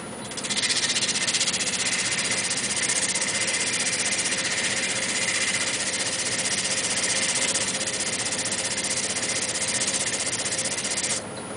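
Sandpaper pressed against a wooden goblet stem spinning on a wood lathe: a steady, loud, hissing scratch with a fast even flutter. It starts abruptly about half a second in and cuts off abruptly near the end.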